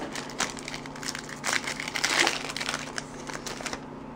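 Trading card pack packaging being torn open and crinkled in the hands as the cards are pulled out: irregular crackling and rustling that stops near the end.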